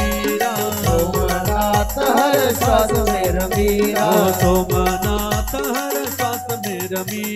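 Hindu devotional bhajan music: a man singing over a steady drum beat whose bass strokes drop in pitch, with a held drone and rattling percussion.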